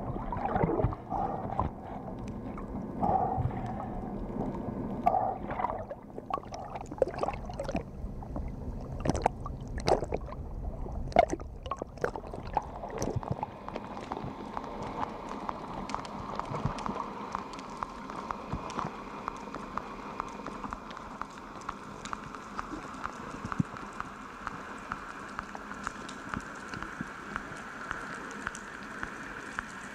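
Underwater ambient noise picked up by the camera: a steady water hiss with many sharp clicks and crackles, thickest in the first half. In the second half a faint steady hum sits over the hiss.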